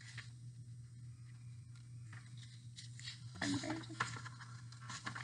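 Quiet room with a steady low hum, soft rustling of picture-book pages being handled, and a brief low murmur from a woman's voice about three and a half seconds in.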